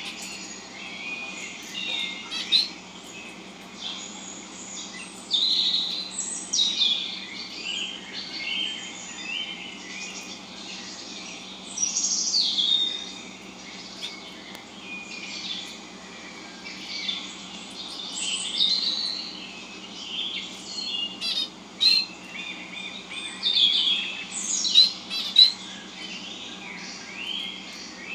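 Dense, overlapping chirping and twittering of small birds: pet birds calling along with recorded bird sounds played back through a speaker. Short rising and falling chirps come one after another, with several louder ones near the end.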